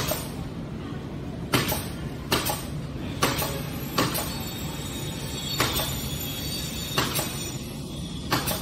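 Irregular sharp clicks and light knocks, about eight in all, from hands handling the wires and terminals in an electric motor's plastic terminal box and brushing its plastic-film wrapping.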